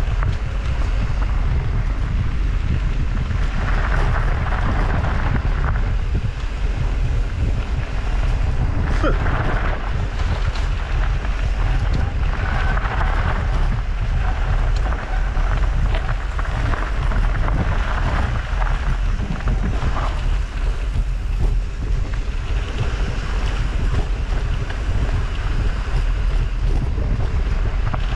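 Wind buffeting the microphone of a camera on a moving mountain bike, a steady low rumble. Over it come surges of tyre and trail noise on a dirt singletrack, with a few light clicks and rattles from the bike.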